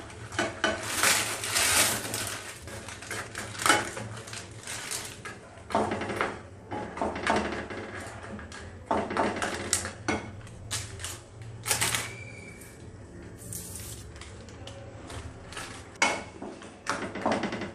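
Wooden spatula knocking and scraping in a nonstick frying pan, breaking up blocks of instant noodles in simmering water, in irregular clattering strokes. A plastic noodle packet crinkles as it is emptied near the start.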